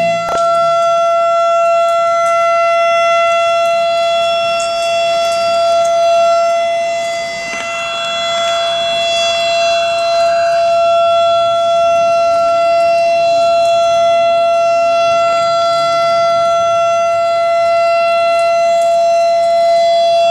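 Outdoor warning siren, the air raid type, sounding one loud, steady tone that holds without rising or falling.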